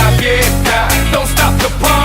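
Loud pop dance music with a steady beat and vocal lines.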